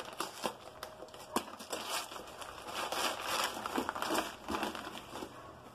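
Newspaper wrapping crinkling and tearing as a part is cut free and unwrapped by hand, with a sharp click about a second and a half in.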